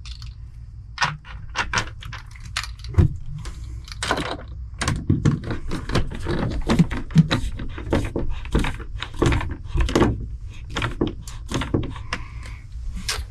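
Irregular run of sharp clicks and knocks, several a second, from handling and fitting a plastic camper window frame into the wall, over a steady low rumble.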